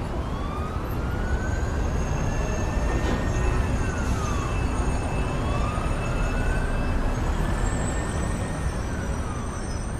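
An emergency-vehicle siren wailing in two slow cycles, each rising in pitch, holding and then falling, over a steady low rumble of city traffic.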